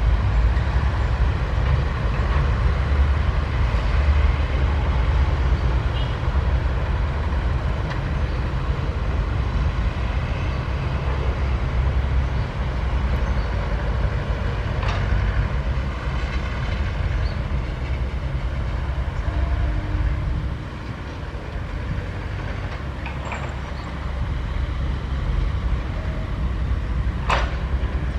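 Sany 135F excavator's diesel engine running steadily under digging load, with a low rumble that eases for a few seconds about two-thirds of the way through. A few sharp knocks come through it, the loudest near the end.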